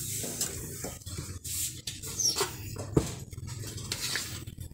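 Scraping, clicking and knocking as margarine is scooped from a plastic tub into a plastic mixing bowl, with a sharper knock about three seconds in. A short high squeak comes about two seconds in.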